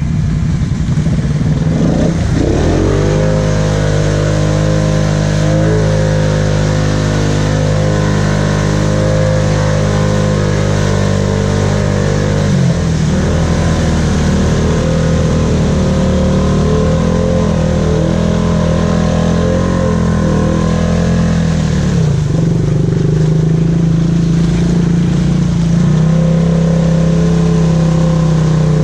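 ATV engine held at high revs under heavy load, pushing through a deep mud hole. The revs climb sharply about two seconds in, sag briefly twice (around twelve and twenty-two seconds in) and pick up again near the end.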